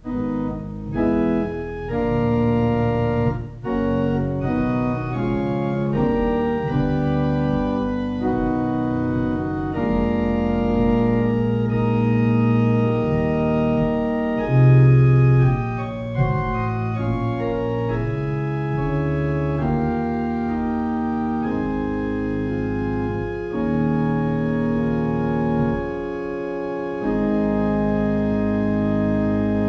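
Organ playing slow music of sustained chords, the held notes changing every second or two: a prelude before the church service begins.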